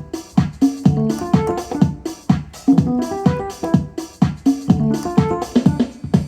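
Instrumental music: a quick electric-keyboard melody over a steady beat with low, falling bass notes.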